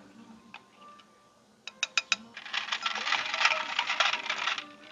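Ice cubes pouring from a plastic scoop into a glass: a dense clinking rattle lasting about two seconds, with a few sharp clinks just before it.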